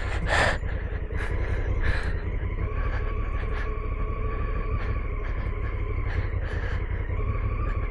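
Honda Africa Twin CRF1000L's parallel-twin engine running steadily as the bike rolls along a gravel and dirt track, with low wind rumble on the microphone and occasional light clicks.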